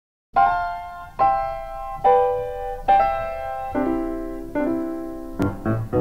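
Background music: chords struck about once every 0.8 seconds, each ringing and fading away, then quicker notes near the end.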